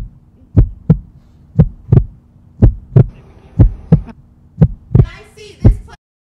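Heartbeat sound effect: a low double thump, lub-dub, about once a second over a faint steady hum, cutting off suddenly near the end.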